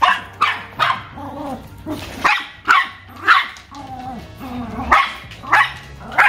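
A dog barking repeatedly: about ten sharp barks in irregular bursts, with pauses of about a second between groups.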